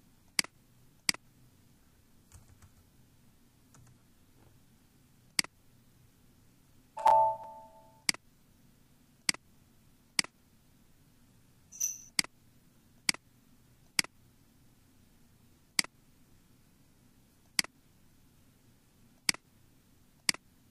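Computer mouse clicking, about a dozen single clicks spaced a second or more apart. About seven seconds in there is a brief, louder tonal blip, and a fainter high-pitched one near twelve seconds.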